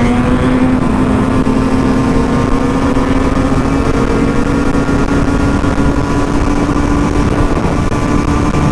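Husqvarna SM 125 supermoto's two-stroke single engine running at steady high revs under way, its pitch creeping slowly upward, with wind noise on the microphone.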